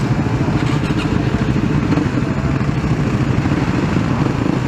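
Supermoto motorcycles' single-cylinder engines idling together, a steady, fast low pulsing with no revving.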